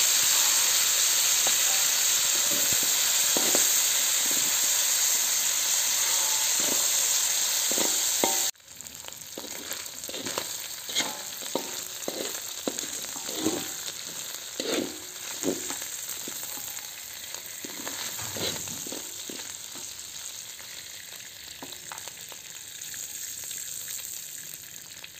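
Salted jambal roti fish frying in hot oil in a wok, with a loud, steady sizzle. After a sudden cut about a third of the way in, the sizzle is quieter and a metal spatula scrapes and clicks against the wok as the fish is stirred.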